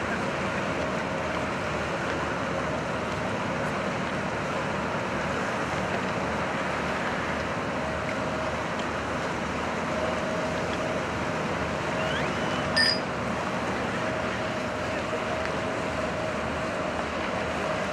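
Boat engine running with a steady drone under the rush of choppy water and wind on the microphone. A single short, sharp click sounds about thirteen seconds in.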